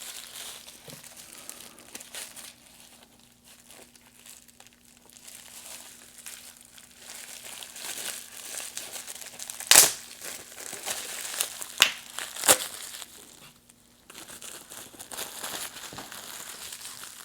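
Plastic packaging crinkling and rustling as a replacement iPhone X screen is unwrapped by hand, with a few sharp snaps a little past the middle.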